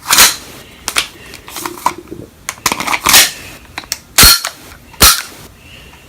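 Airsoft IMI Desert Eagle replica being handled: a run of sharp metallic clicks and clacks as the magazine goes in and the action is worked, with two loud, sharp clacks near the end.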